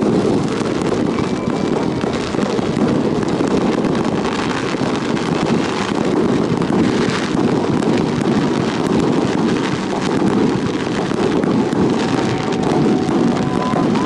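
Steady rumbling wind noise on the microphone, with faint pops and crackles of fireworks going off here and there.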